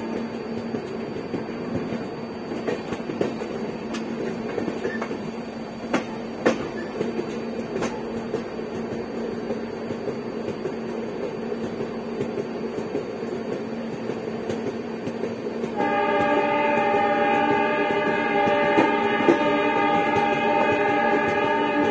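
An express train running at speed, heard from an open coach door: the rumble of the running gear with a few sharp clicks from the wheels on the track. About two-thirds of the way in, the WDP4D diesel locomotive's horn starts and sounds in one long, steady blast.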